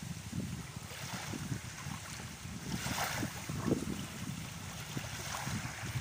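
Small waves lapping and washing up onto a sandy shore, with hissing swells about three seconds in and again near the end. Wind buffets the microphone with an uneven low rumble underneath.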